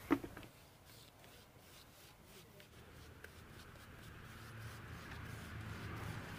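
Paintbrush scrubbing white paint onto a rubber tyre: a faint, soft scratchy brushing that grows a little louder towards the end. A short sharp click right at the start.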